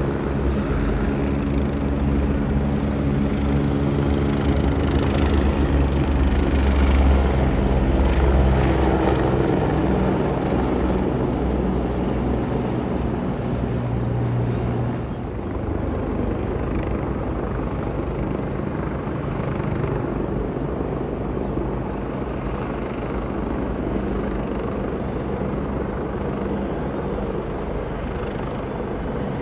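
Airbus H175 twin-turbine helicopter in flight, its rotor beat and engine drone running steadily. Loudest in the first half, it turns quieter and more distant from about halfway through.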